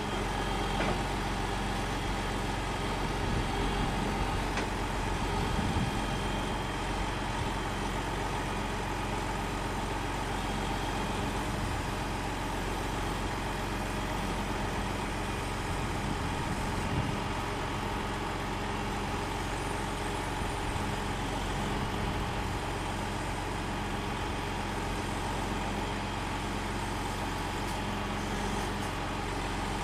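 Log truck's diesel engine running steadily, driving the hydraulics of its grapple log loader as a log is lifted off the load. A steady high tone rides over the engine hum throughout.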